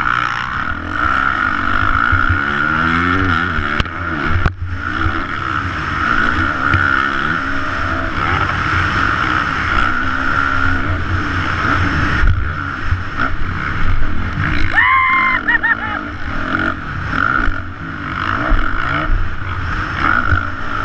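Motocross dirt bike engine revving up and down again and again through the gears, heard from a helmet camera. A brief higher gliding whine comes in about 15 seconds in.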